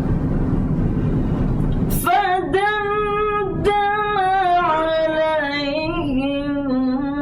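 A woman reciting the Quran in melodic tajweed style, holding a long ornamented phrase whose pitch rises, bends and glides. The phrase starts about two seconds in, after a stretch of low, noisy rumble.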